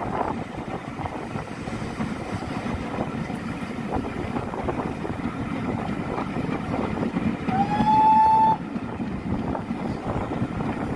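Steam train running, with rumbling running noise and wind buffeting a microphone held out of a carriage window. About eight seconds in, the locomotive's whistle sounds once for about a second: a slight upward slide, then a steady high tone that stops abruptly.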